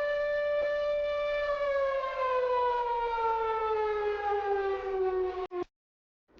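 Civil defense siren sounding as an emergency alert alarm. It holds a steady pitch, then slowly winds down in pitch, and cuts off abruptly with a click about five and a half seconds in.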